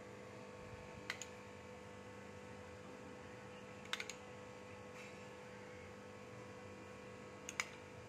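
A few faint clicks of a steel spoon tapping a bowl and plate as curd is spooned out, about a second in, twice near four seconds, and near the end, over a steady hum.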